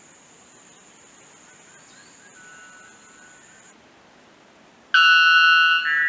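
White bellbird giving its very loud, ringing call, which starts suddenly near the end: a note of about a second followed straight away by a shorter second note.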